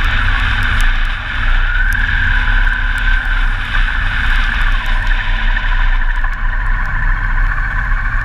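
Motorcycle riding along a wet road, heard from a camera fixed to the bike: a steady engine note under heavy wind rumble. The engine note drops about five seconds in as the bike slows into a roundabout.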